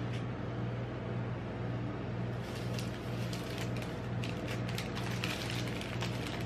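Plastic candy-bar wrappers crinkling in gloved hands, irregular crackles starting about two and a half seconds in and thickening near the end, over a steady low hum.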